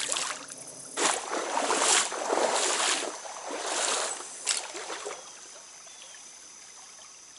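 Water swishing and splashing in a shallow trout stream, several swishes about a second apart, then quieter from about five seconds in.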